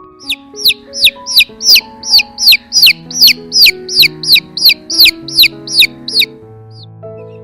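Chick peeping: a run of loud, high, falling peeps, about three a second, that stops about six seconds in, over background music.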